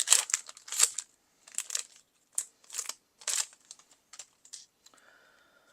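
Foil wrapper of a Magic: The Gathering booster pack being torn open and crinkled by hand, a quick series of sharp crackles that die down after about three seconds.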